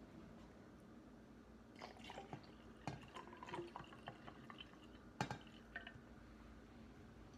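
Coffee poured from a glass coffee-maker carafe into an insulated tumbler: faint splashing and trickling, starting about two seconds in, with a couple of sharp clinks.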